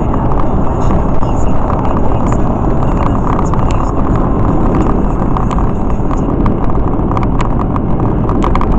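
Road and wind noise inside a moving car's cabin at speed: a loud, steady rumble, with scattered light ticks over it.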